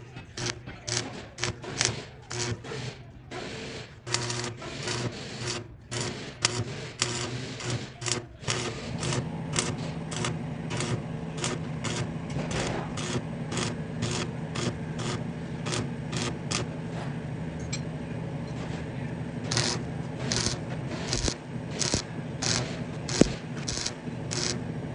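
Datsun pickup engine running through a newly fitted exhaust pipe: a steady low hum with many sharp, irregular clicks over it. The hum grows stronger about eight seconds in.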